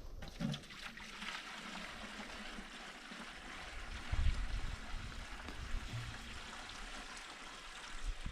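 Water trickling steadily as it is poured into a homemade sawmill's blade-cooling water line, with a dull low bump about four seconds in.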